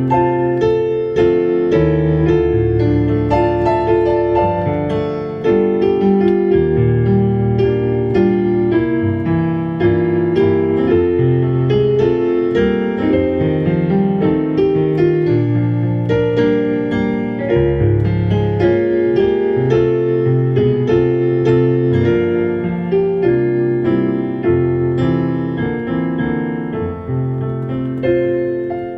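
Solo piano playing a slow hymn-like instrumental, with sustained chords in the right hand over a moving bass line and no singing.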